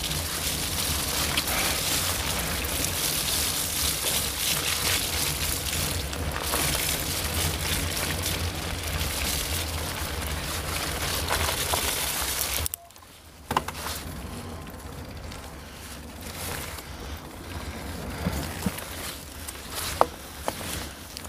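Mountain bike riding on a wet forest trail: steady wind noise on the handlebar-mounted camera over the rolling of the tyres. About two-thirds through the noise drops sharply, leaving quieter rolling with a few sharp knocks as the bike crosses onto wooden boardwalk.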